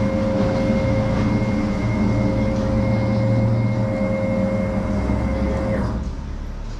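CNC router machine running with a steady, constant-pitch whine over a low hum, stopping about six seconds in.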